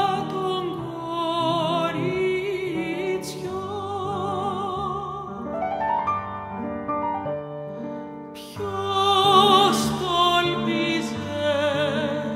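A woman's trained classical voice singing with wide vibrato, accompanied by piano. Around the middle the voice rests while the piano climbs in a rising run, and then the voice comes back in loudly.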